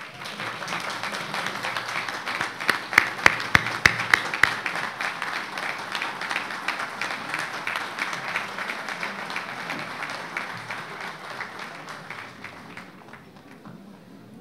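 Large crowd applauding as the graduates toss their caps, a dense patter of clapping with a few louder sharp cracks a few seconds in. It fades away near the end.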